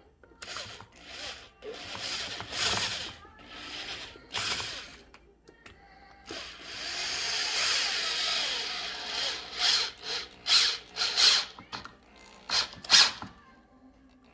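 Power drill with an extension and bit driving screws to fasten a sofa leg to the frame: a few short trigger bursts, then a longer run of about three seconds, then several quick bursts as the screw is snugged tight.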